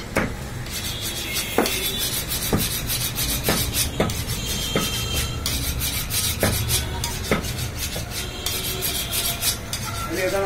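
Sharp knocks, roughly one a second and unevenly spaced, with rasping and scraping over a steady hiss: the work noise of a meat shop.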